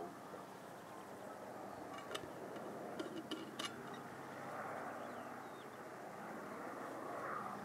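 Faint, steady drone of two distant propeller aircraft flying in formation, with a few sharp clicks about two to three and a half seconds in.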